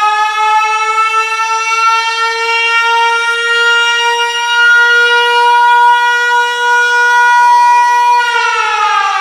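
A single long siren-like note with many overtones, held and slowly rising in pitch, then sliding down about eight seconds in, as the opening of a raï music track.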